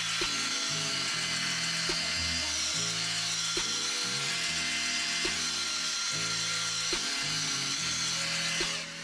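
Handheld hair dryer blowing steadily on the glued lace-front hairline to dry and set the glue, over background music with a steady beat. The dryer's rush stops near the end.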